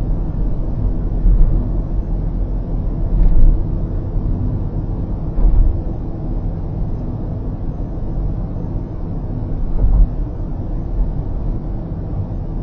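Steady low road rumble of a car driving on an expressway, heard through a dashcam mic inside the cabin, with a few short low thumps along the way.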